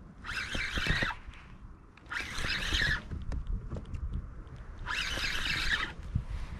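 Spinning reel's drag buzzing in three bursts of about a second each as a hooked fish pulls line off the spool, with a few low handling knocks.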